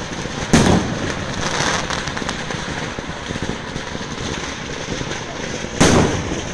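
New Year's fireworks going off on all sides: a dense, continuous crackle of many small bangs, with two much louder booms of aerial shells bursting, about half a second in and again near the end.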